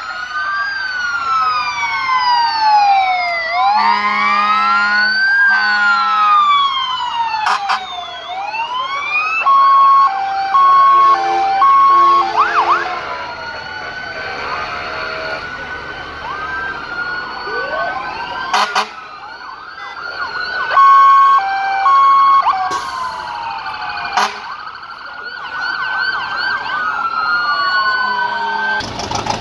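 Several fire truck sirens sounding at once, their rising and falling wails overlapping throughout. Groups of short, steady horn blasts come about a third of the way in and again past two-thirds.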